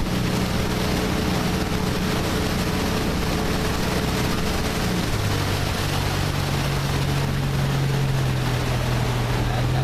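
Passenger speedboat's engine running steadily at cruising speed over the rush of water and wind. About five seconds in, the engine note drops slightly and holds steady at the lower pitch.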